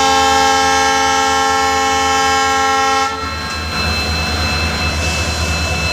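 Locomotive horn sounding one long, steady blast that cuts off about three seconds in, over a continuous low engine rumble.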